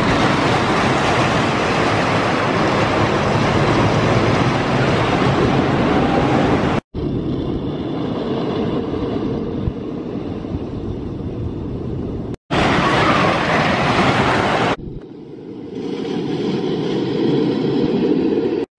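Wooden roller coaster train running along its wooden track, a loud continuous rattling rumble. The sound breaks off abruptly twice, dips about three quarters of the way in, and then a low rumble builds again.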